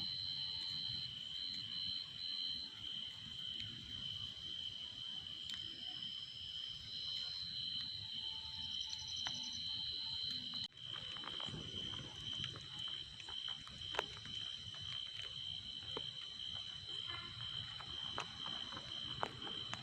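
Insects trilling steadily in two high, unbroken tones, with scattered sharp clicks in the second half.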